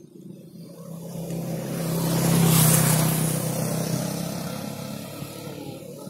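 An engine passing by, growing louder to its peak about two and a half seconds in and then fading away.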